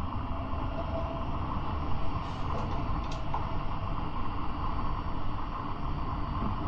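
Tram running along the track with a steady low rumble, and a couple of short high squeaks about two to three seconds in.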